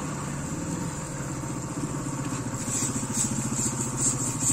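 A small engine running steadily at idle with a fast low throb. From about three seconds in, a high hiss pulses a few times a second over it.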